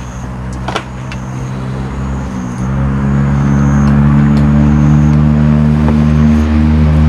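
A motor vehicle's engine running nearby: a steady low hum that grows louder about two and a half seconds in and then holds. Over it, a short high chirp repeats about once a second.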